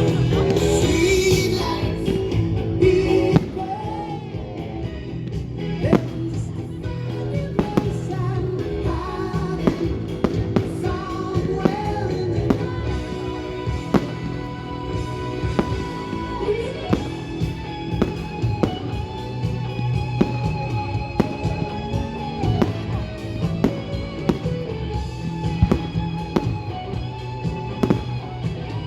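A pop-rock song with singing, over a run of sharp firework bangs and cracks. The first few seconds are louder than the rest.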